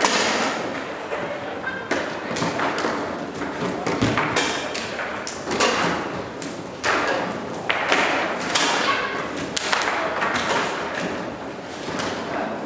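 Table football game in play: the ball and the rods' plastic figures give a run of irregular sharp knocks and thuds, with the rods clacking as they are slammed and spun, echoing in a large hall.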